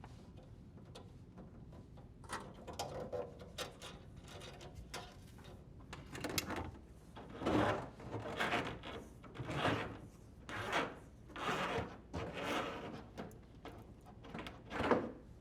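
Dishwasher drain hose being pulled through the cabinet wall, a rubbing, sliding tug roughly once a second, the strongest tugs in the second half.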